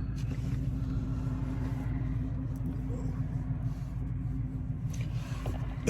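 Supercharged 6.2-litre V8 of a Chevrolet Camaro ZL1 idling steadily, a low, even rumble heard from inside the cabin.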